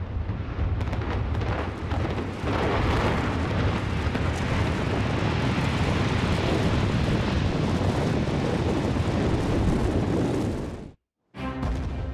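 Explosive demolition charges cracking in quick succession, then the long, heavy rumble of a 31-storey reinforced-concrete tower collapsing in an implosion. The rumble cuts off abruptly about a second before the end.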